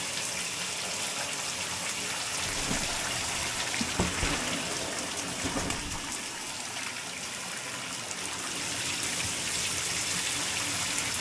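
Shower running, a steady hiss of spraying water, with a small knock about four seconds in.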